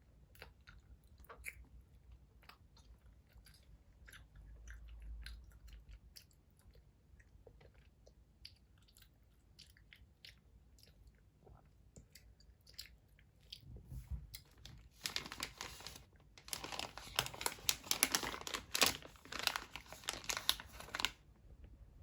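Toddler chewing gummy candies: scattered small mouth clicks and smacks, then about fifteen seconds in a louder, dense crackle lasting around six seconds.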